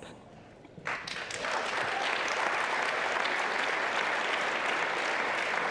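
Audience applauding, starting about a second in after a brief hush and then holding steady.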